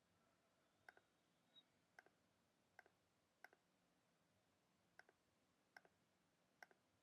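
Faint computer mouse clicks, about seven of them spaced roughly a second apart, each a quick press-and-release pair.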